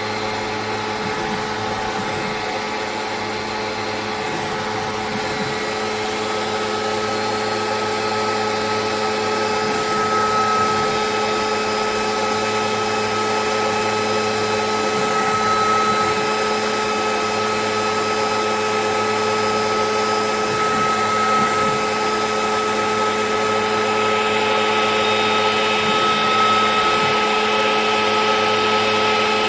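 Denver Quota Tech CNC stone working center running, a steady electric machine whine with several fixed tones, growing slightly louder over the stretch.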